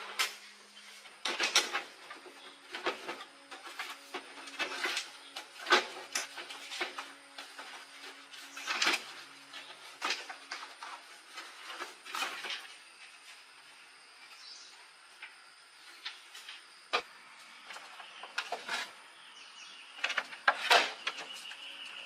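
Irregular clicks and knocks of repair work on an electric bike, some sharp and some softer, over a faint steady hum.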